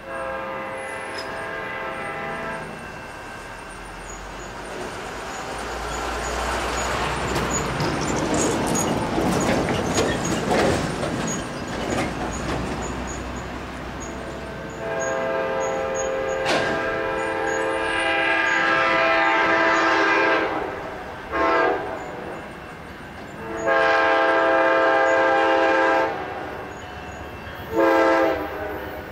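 Amtrak P42DC diesel locomotive sounding its horn: a long blast at the start, then a run of long and short blasts in the second half. In between, a rumbling noise of the train on the rails swells and fades.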